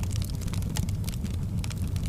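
Firewood burning: frequent sharp crackles and pops from the wood over a steady low rush of the fire.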